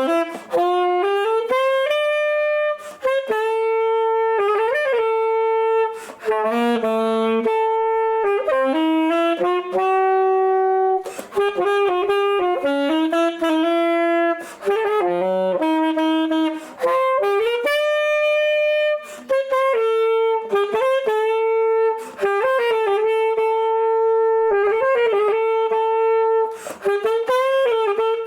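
Alto saxophone playing a quick jazz melody line, one note at a time, with a few brief pauses between phrases.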